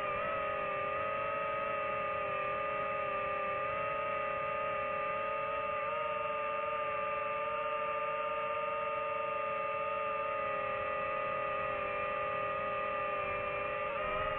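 DJI FPV drone's motors and propellers whining steadily in flight, several tones at once that dip and recover together about six seconds in and again near the end as the throttle changes.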